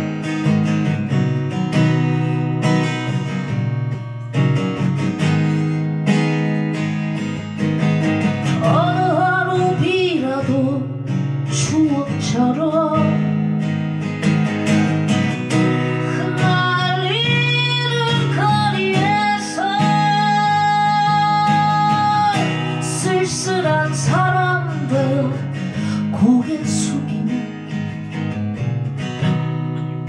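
Acoustic guitar strummed in steady chords, with a woman's singing voice entering about eight seconds in. She holds one long note with vibrato about two-thirds of the way through, then the voice drops out, leaving the guitar alone near the end.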